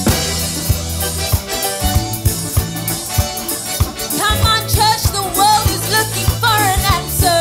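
Gospel worship music played by a band with drum kit and bass, and a singer who comes in about four seconds in.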